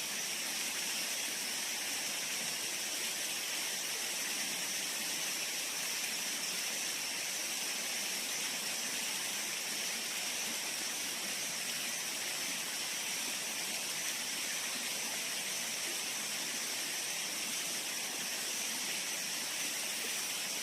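Steady rushing of a stream's running water: an even hiss with no breaks.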